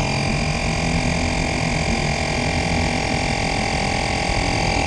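Portable electric tyre inflator running with a steady buzzing whine, pumping air through its hose into a mountain bike's front tyre.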